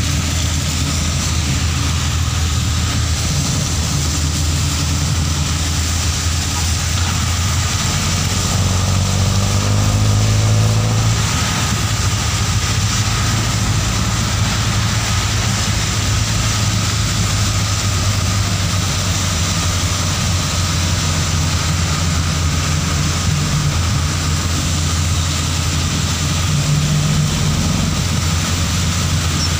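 Engine of the vehicle being ridden in, heard from on board and running with a steady low drone. About eight to eleven seconds in it rises in pitch as it speeds up. A steady hiss of tyres on the wet road runs underneath.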